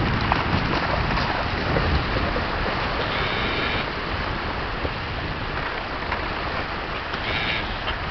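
Strong wind buffeting the microphone over waves breaking on the lake shore, a steady rushing noise with heavy low rumble. Two brief high-pitched sounds come about three seconds in and again near the end.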